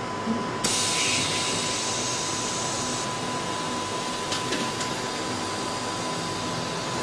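Factory machinery running steadily under a thin, steady high whine. About half a second in, a sudden hiss of air starts, strongest for the first couple of seconds and then settling lower. There are two light clicks near the middle.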